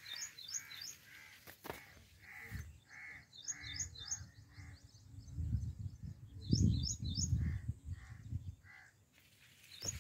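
Crows cawing, several calls in a row, in three bouts, with quick high chirps of a smaller bird in between. A low rumble on the microphone in the middle.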